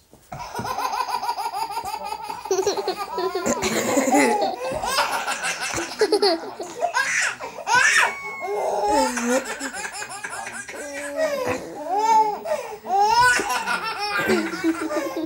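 A baby laughing over and over in short bursts.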